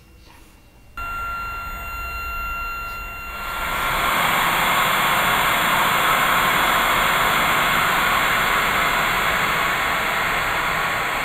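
Electronic noise drone that starts suddenly about a second in, at first with two thin steady tones over it, then swelling about three seconds in into a dense, even rush like white noise that holds steady.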